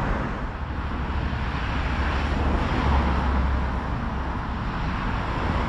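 Road traffic on a busy dual carriageway: cars passing with steady tyre and engine noise and a deep rumble that swells about three seconds in as a vehicle goes by.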